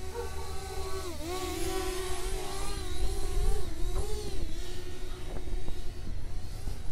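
DJI Spark quadcopter's propellers whining as it hovers low. The hum dips in pitch about a second in and wavers as the motors adjust, over low wind rumble on the microphone.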